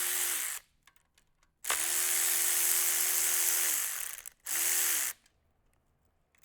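Cordless electric tool spinning bolts out of an engine's timing cover. Its motor whines steadily in three runs, the first and third short and the middle one about two and a half seconds long, and the pitch winds down each time it stops. Small clicks sound in the pauses.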